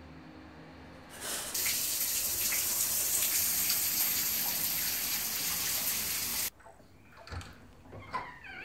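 Steady rushing noise of running water, starting about a second in and cutting off abruptly about five seconds later.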